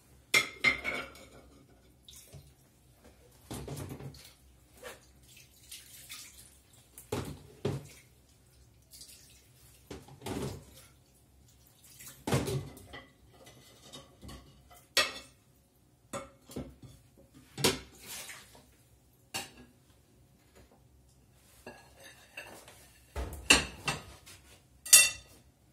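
Clam shells, dishes and cutlery being handled: scattered clatters and knocks of shell and crockery every second or few, the loudest pair near the end.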